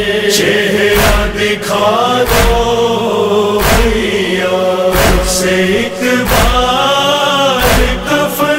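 Noha, an Urdu mourning lament, chanted with long drawn-out notes, kept in time by regular sharp beats.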